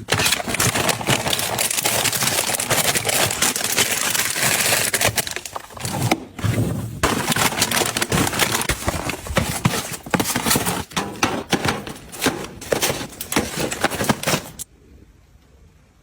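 Dense crackling, rustling and clicking of objects being handled close to the microphone, which stops suddenly near the end.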